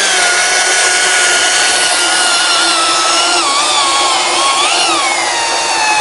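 STIHL MSA 300 battery chainsaw running at full throttle in its standard mode, chain at about 24 m/s: a steady electric motor-and-chain whine. The pitch wavers and dips a little past the middle, then settles lower.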